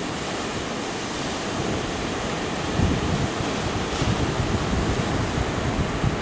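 Ocean surf breaking on a reef: a steady rush of waves. From about three seconds in, wind buffets the microphone in low gusts.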